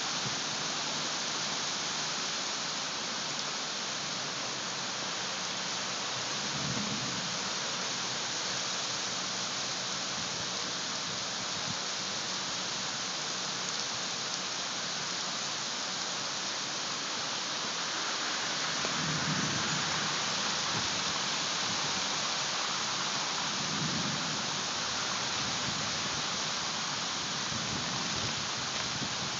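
Heavy thunderstorm downpour: a steady, dense hiss of rain. A few short, low rumbles of thunder are scattered through it.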